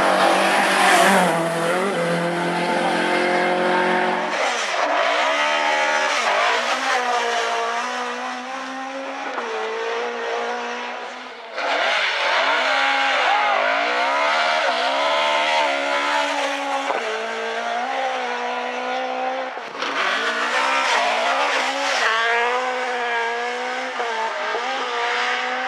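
Mk2 Ford Escort rally car engine revving hard at speed, the pitch climbing and dropping again and again through gear changes and lift-offs, heard over several separate passes that cut in abruptly one after another.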